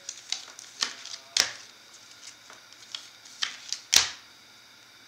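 Hard plastic trading-card cases clicking and clacking against one another as cards are cased and stacked: a string of sharp, irregular clicks, two of them louder, about one and a half and four seconds in.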